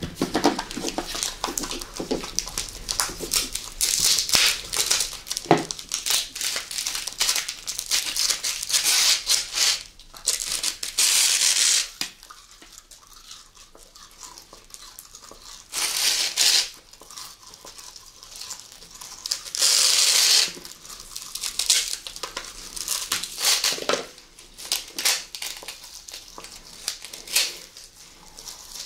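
Close-miked eating of sugar-coated sour gummy tape pulled off a plastic roll dispenser: sticky chewing and a crackly, crinkling rustle, with several louder bursts of rustling.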